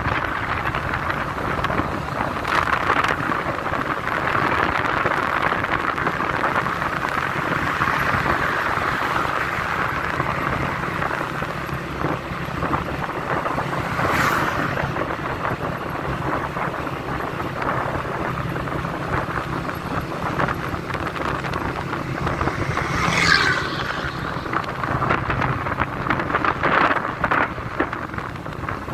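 Wind rushing over the microphone on top of the steady hum of a vehicle's engine and tyres on the road while driving. Late on there is a brief falling tone.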